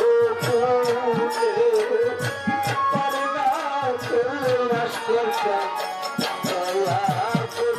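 Music in a South Asian style: a wavering, ornamented melody over steady percussion, with short falling low drum notes struck again and again.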